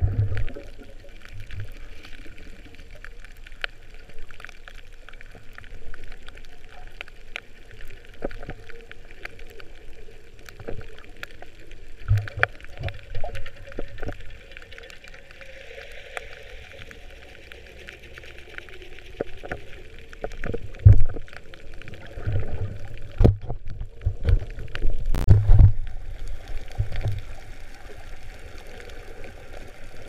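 Underwater ambience picked up by a submerged camera: a muffled water hiss with many scattered sharp clicks and irregular low rumbling thumps, the thumps heaviest in the last third.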